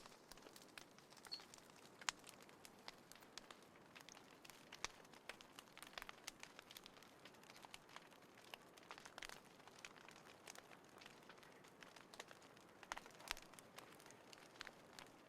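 Small campfire in a compact folding fire pit crackling, with frequent irregular sharp pops and ticks over a faint hiss.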